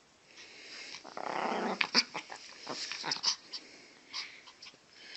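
Pomeranian growling and snarling in fits and starts, with sharp snaps as it lunges at a hand reaching toward it: guarding the person it sits on against being touched.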